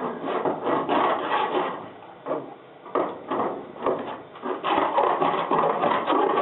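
Hand file rasping across body solder on a car body panel in repeated strokes, easing off about two seconds in and then running in quicker, steadier strokes near the end. The solder is hard and files harder than lead would.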